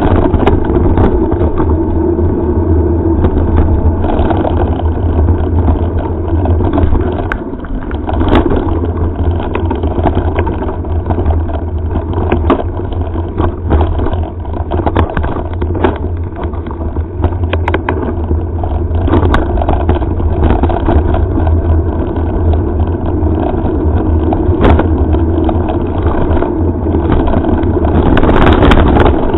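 Wind buffeting the microphone of a helmet-mounted camera on a mountain bike ride over a gravel forest track, with many small rattles and knocks from the bike and camera over the rough surface.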